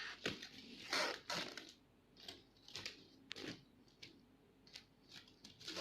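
Scattered short rustles and tearing sounds with a few light clicks, from a meal being handled.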